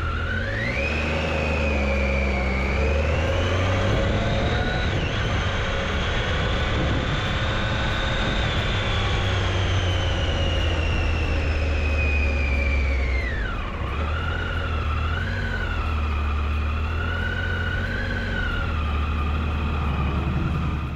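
Triumph Tiger motorcycle engine on the move. Its note climbs over the first few seconds under acceleration, holds and eases off gradually, then drops sharply about two-thirds of the way through as the throttle is closed, and carries on at a lower steady pitch. A constant low rumble of wind on the microphone runs underneath.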